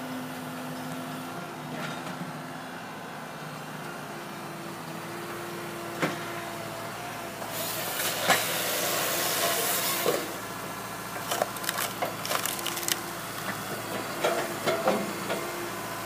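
CAT 314E excavator's engine and hydraulics running steadily while its Hahn HFP-160 firewood processor works a log. About seven and a half seconds in, the processor's saw cuts through the log for a couple of seconds with a loud hissing rasp. From then on come repeated sharp wooden knocks and clatter as cut and split pieces fall into the bin.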